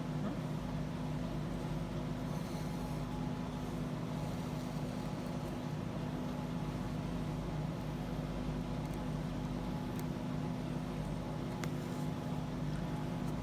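Whole-house fan running steadily, a constant rushing hum with a low drone. A couple of faint short ticks sound late on.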